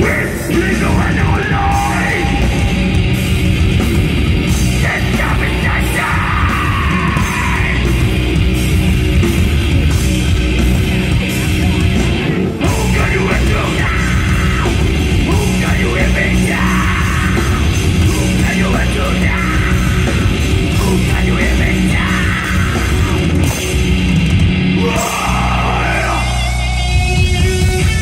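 A live rock band playing loud: drums, bass and electric guitar, with a singer yelling and singing over them. About 25 seconds in the sound thins briefly and a guitar part takes the lead.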